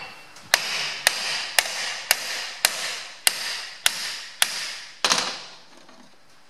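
Hammer striking the end of a steel steering-wheel puller's forcing screw: about ten sharp metallic blows, roughly two a second, each ringing briefly, stopping about five seconds in. The tensioned puller is being shock-loaded to free a steering wheel stuck tight on a John Deere tractor's steering column shaft.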